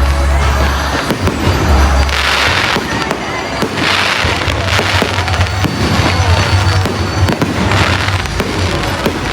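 Fireworks going off in the air: bangs and bursts of crackle come about every second or two. Music with a steady bass line plays underneath.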